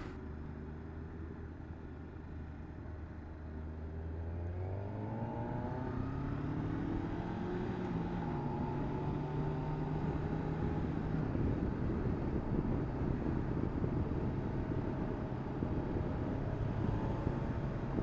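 Motorcycle engine pulling at low revs, then rising in pitch as it accelerates about four seconds in. It then runs steadily at speed, with wind and road noise growing over it.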